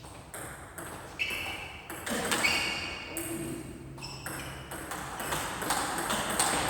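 Sharp strikes from a racquet-sport rally on an indoor court, mixed with short high-pitched shoe squeaks on the court floor.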